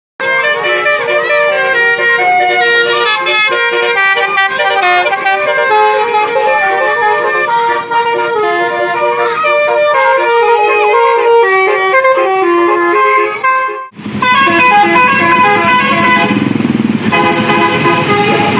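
Bus 'telolet' musical air horn (Basuri type) playing a melody of quick-changing multi-tone notes. After a short dip about fourteen seconds in, the horn notes carry on over a low rumble.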